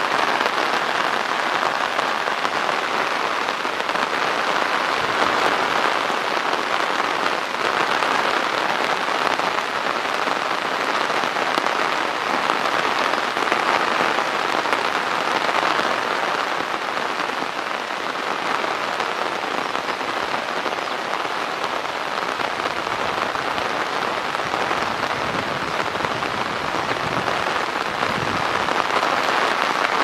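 Heavy rain falling steadily on a flooded pond and puddled road, a dense even hiss of drops hitting water.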